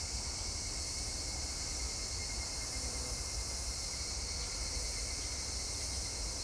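Evening insect chorus: a steady, shrill high-pitched hiss over a low rumble.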